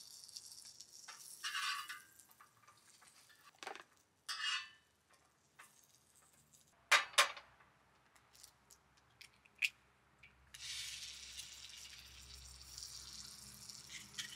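Egg frying in butter in a small pan. Handling clatter and two sharp taps about seven seconds in, as the egg is cracked, then a steady sizzle from about ten and a half seconds on.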